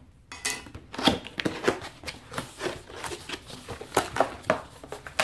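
Cardboard box being opened and its packaging handled: a string of irregular clicks, scrapes and rustles.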